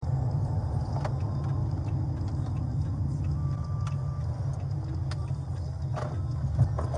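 Steady low rumble of a moving car, with scattered light clicks and knocks.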